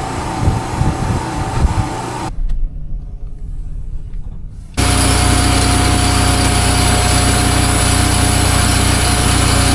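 Engine running steadily, broken by abrupt cuts: uneven engine noise at first, a much quieter low rumble from about two seconds in, then a louder, even engine hum from about five seconds in.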